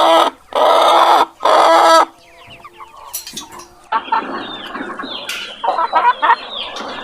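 Chickens calling: a hen gives three loud squawking calls over the first two seconds, then the flock goes on clucking and chirping more quietly.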